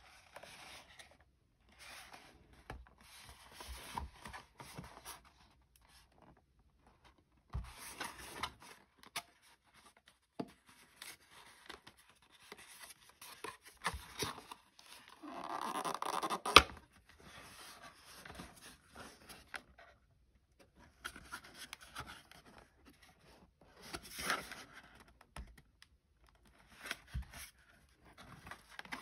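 Cardboard whisky gift box being handled and opened: bursts of card rubbing, scraping and sliding between short pauses, with a louder scraping swell a little past halfway that ends in a sharp click.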